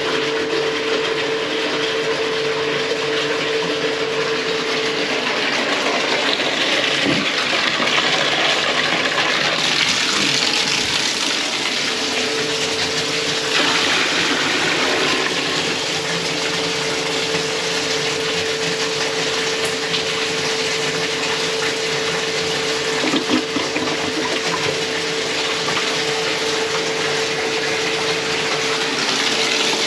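Water running steadily in a bathroom, with a steady hum that drops out for a few seconds partway through.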